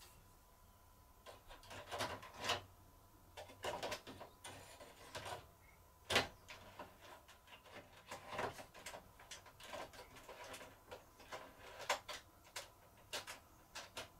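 A T8 LED tube being handled and twisted into the lampholders of a fluorescent light fitting: irregular clicks, knocks and light scraping. The loudest knock comes about six seconds in.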